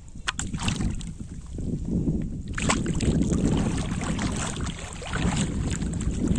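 Hooked catfish thrashing at the surface on a bottle-trap line, splashing and churning the water, with a sharp splash about two and a half seconds in and steady splashing after it.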